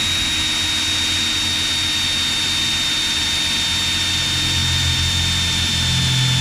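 Electric drill running steadily at full speed with a high whine, boring out a bolt hole with a larger bit so a new ATV hitch adapter will line up.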